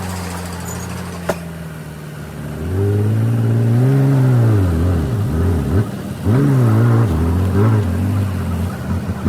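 Heavy earthmoving machine's diesel engine running, its pitch rising and falling several times as it revs up and drops back. There is a single sharp click about a second in.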